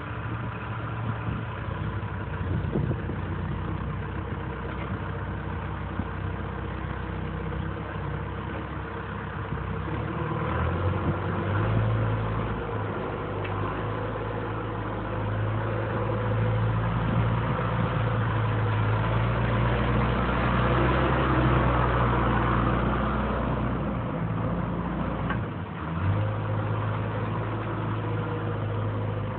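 John Deere 410E backhoe's diesel engine running, first at a steady idle, then speeding up about a third of the way in and running faster and louder, with a brief dip near the end.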